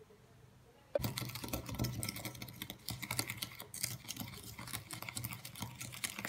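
Wooden spoon stirring instant coffee granules, sugar and a little hot water in a ceramic bowl: a rapid, uneven run of small clicks and scrapes against the bowl that starts about a second in.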